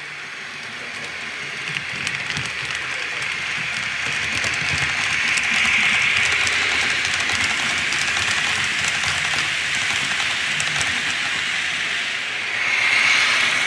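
Model steam train passing on a layout: a steady hiss that swells over the first few seconds and then holds, with light clicks of wheels running over the track.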